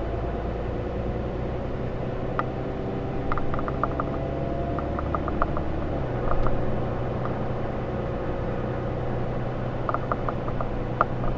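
A 2013 Ram 3500's 6.7-litre Cummins inline-six turbo diesel running under way, with a steady low drone and road noise. A faint whine rises in pitch over the first few seconds, and the low drone changes pitch about six seconds in, as with a gear change. A few light clicks come and go.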